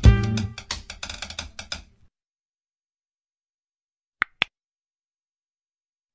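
Background music with drums fades out about two seconds in. After a short silence, a pair of quick mouse-click sound effects comes about four seconds in, as a cursor clicks a subscribe button.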